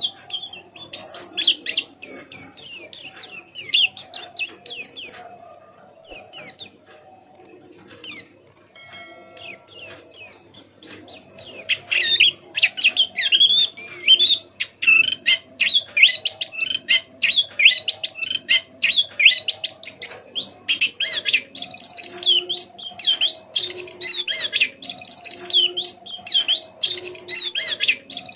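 A white-eye (pleci) singing a rapid, high twittering song of quick chirping notes. The song thins to a few scattered notes about five seconds in, then resumes more densely from around eleven seconds.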